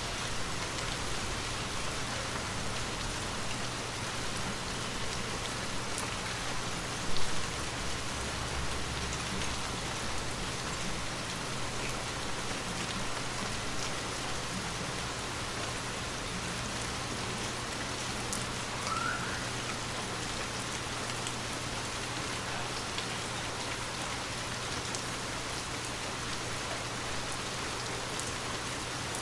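Steady rain falling on a window, with scattered single drop ticks and a low steady hum underneath. A short, louder knock stands out about seven seconds in.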